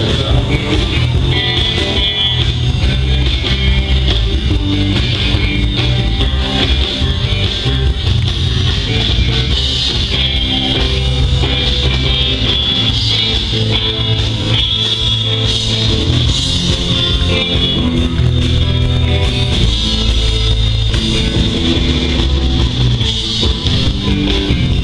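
Live rock and roll band playing a guitar-led instrumental passage through outdoor PA speakers, with a steady bass underneath.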